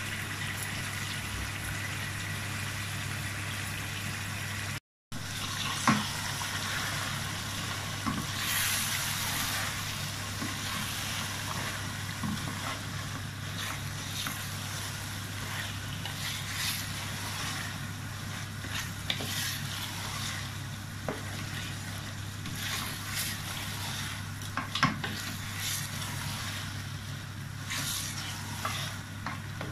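A wooden spoon stirring rice through a frying meat curry in a metal pot: scraping, with scattered light clacks against the pot, over a steady sizzling hiss and a steady low hum. The sound cuts out briefly about five seconds in.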